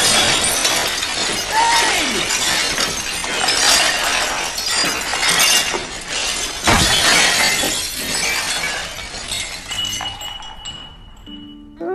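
Glassware and crockery crashing down and shattering: a long run of breaking pieces with repeated sharp impacts, tailing off near the end.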